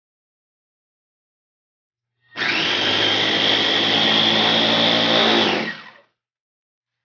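Electric food chopper's motor running as its blades mince garlic cloves, a steady run with a high whine. It starts about two seconds in and winds down about a second before the end.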